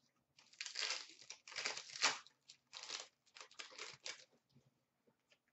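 A foil trading-card pack wrapper crinkling and tearing as it is ripped open, in several irregular bursts over about four seconds.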